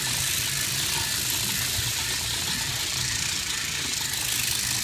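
Antique hand-cranked sheep shearing machine driving a Chicago Flexible Shaft (Stewart No. 7) handpiece, running steadily as it is cranked while the handpiece cuts through a sheep's fleece.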